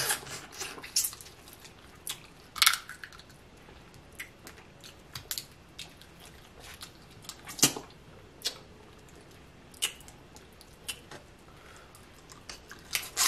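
A person eating snow crab legs close to the microphone: chewing and lip smacking, with irregular sharp clicks.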